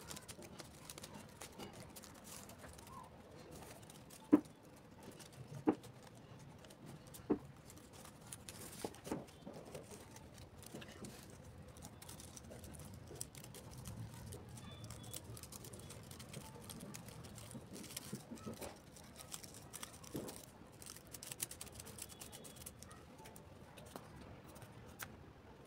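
A few sharp taps or knocks over faint rustling: three in quick succession about four, five and a half and seven seconds in, the first the loudest, with softer ones later.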